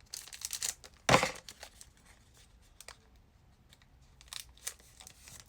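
Foil Pokémon card booster pack being torn open and crinkled, with one sharp loud rip about a second in, then a few faint ticks.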